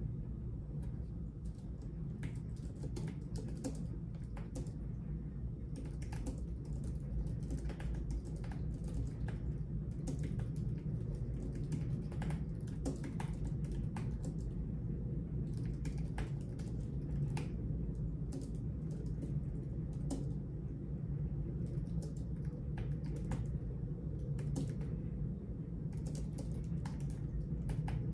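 Typing on a computer keyboard: irregular runs of keystroke clicks with short pauses, over a steady low hum.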